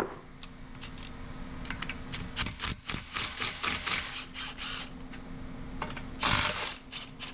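Metal parts of a tractor torque amplifier clinking, clicking and scraping as it is being taken apart by hand, with a louder scrape lasting about half a second about six seconds in.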